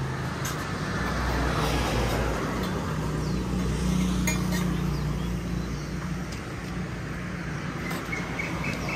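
Steady drone of a vehicle engine while travelling: a constant low hum under a wash of travel noise.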